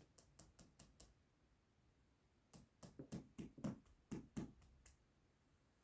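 A small nail being tapped into a brick wall's mortar joint with light hammer taps. There is a quick run of faint taps, a pause, then about ten more taps about halfway through.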